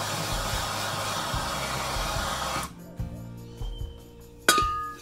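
Handheld gas torch hissing steadily as its blue flame heats a Loctited nut on a motorcycle crankshaft gear to soften the threadlocker, cut off suddenly a little past halfway. A few light clicks follow, then a sharp metallic clink with a brief ring near the end.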